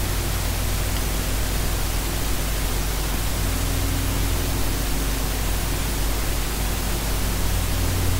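Electric arc welding on tram rails: a steady, even hissing crackle of the welding arc over a constant low hum.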